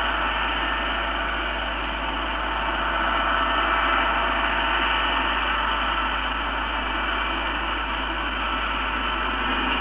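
Jet engine running steadily, an even rushing drone with a thin high whine over it.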